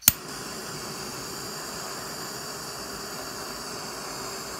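Small gas torch lit with a sharp click, then its flame hissing steadily as it heats a strip of mesh to oxidize it.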